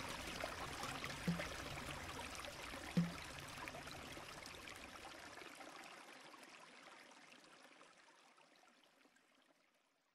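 Flowing stream water fading out to silence, with two brief low notes about one and three seconds in.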